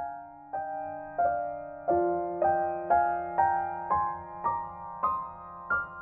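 Soft background piano music: single notes struck about twice a second in a slowly rising line over a held lower note.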